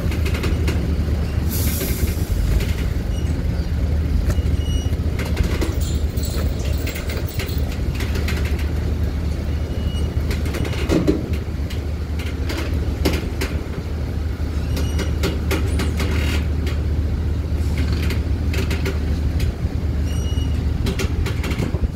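Double-decker coach's diesel engine idling with a steady low drone as it waits at the port gate, with a short hiss of released brake air about two seconds in.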